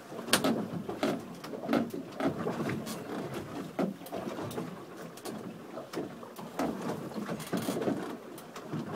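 Block-and-tackle rope and pulleys creaking under heavy load as a giant bluefin tuna is hoisted by hand. The creaks come in uneven bursts, with a few sharp knocks, the loudest just after the start.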